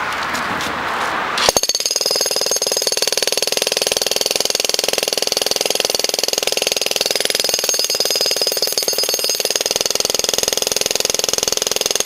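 Makita 30 lb electric jackhammer starting about a second and a half in, then hammering steadily into a concrete driveway: a very fast, even pounding with a steady whine over it.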